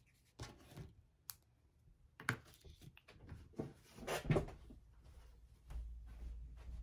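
Scattered light clicks and knocks of small craft items being handled and set down on a cutting mat, the loudest knock about four seconds in. A low rumble follows it.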